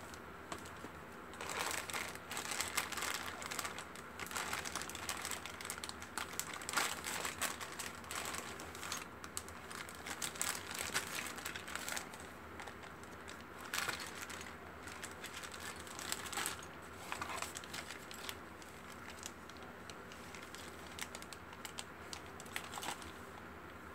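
Clear plastic bags of model-kit parts crinkling and rustling as they are handled, in dense bursts for most of the first two-thirds, then quieter with a few brief rustles near the end.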